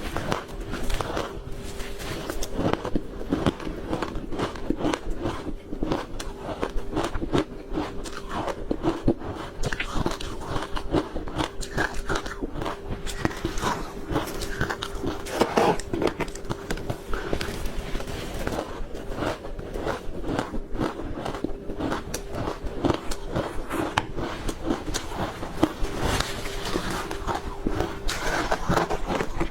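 Ice being bitten and chewed close to the microphone: a dense run of irregular crunches and cracks. A steady faint hum sounds underneath.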